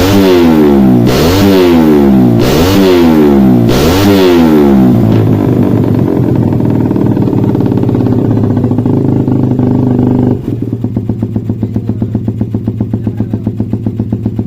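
Suzuki Satria FU single-cylinder motorcycle engine, fitted with a PE28 carburettor during tuning, blipped four times in quick succession, about one rev a second. It then holds a steady raised idle and, about ten seconds in, drops to a lower, evenly pulsing idle.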